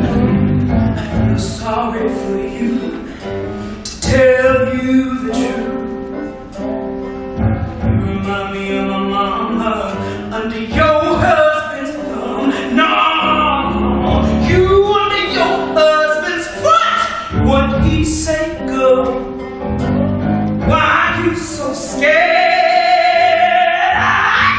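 A musical-theatre number: a woman sings a gospel-tinged song over a pit orchestra, her lines rising in intensity. Near the end she belts one long held note with wide vibrato.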